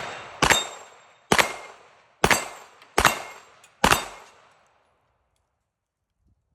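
Canik Rival-S 9mm pistol fired five times at a steady pace, about one shot a second. Each shot is a sharp report with a decaying echo, and the string stops about four seconds in.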